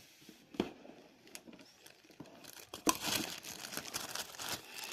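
Plastic packaging crinkling as it is handled, with a few light clicks in the first second and a half, then continuous crinkling from about two and a half seconds in.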